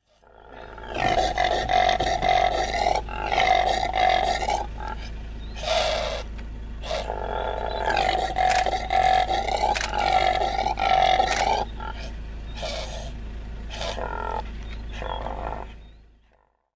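Impala ram's roaring call: a run of loud, pitched, grunting calls, each lasting a second or two with short breaths between. The run fades in at the start and fades out near the end.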